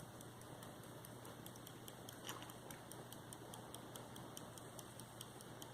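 Edward East verge fusee pocket watch ticking faintly and quickly, about five ticks a second.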